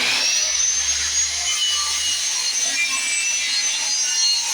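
Woodworking power tool motor spinning up, its whine rising and levelling off about a second in, then running steadily.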